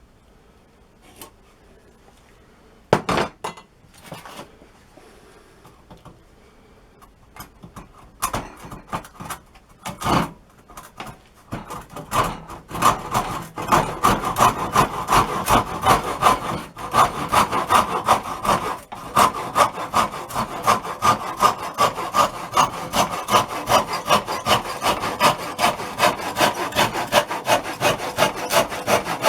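Hand saw cutting through a block of wood in steady back-and-forth strokes, about two to three a second, after a few knocks and handling noises at the start.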